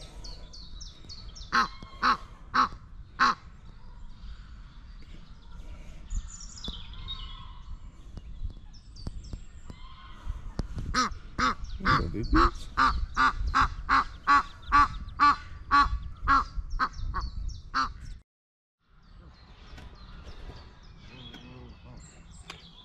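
Geese honking: a few calls in the first seconds, then a fast, loud run of about three honks a second.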